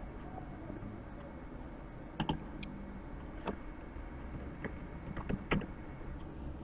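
Scattered keystrokes on a computer keyboard as a short word is typed. The clicks come a few at a time, with the busiest run about five seconds in.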